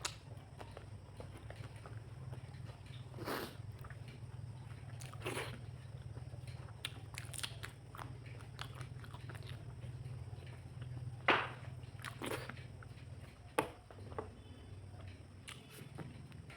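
A person chewing and biting through fish curry and green chillies: wet chewing with scattered short crunches and clicks over a steady low hum. A cat meows faintly near the end.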